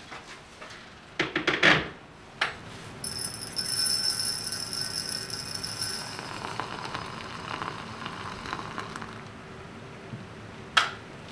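Tea being made with glassware: knocks and clinks of a glass teapot and a metal tea tin, dry loose tea poured into the glass pot, and a hiss of pouring. A sharp clink comes near the end.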